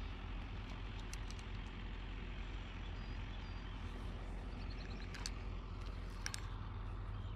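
Steady low outdoor rumble and hiss, with a few sharp clicks from a spinning reel and rod as a lure is cast and the line is readied to reel in, one pair of clicks about five seconds in and another about six seconds in.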